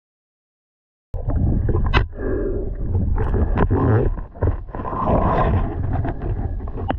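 Muffled rushing water picked up by a camera in the river, heavy in the low end, with scattered knocks. It cuts in abruptly about a second in after total silence.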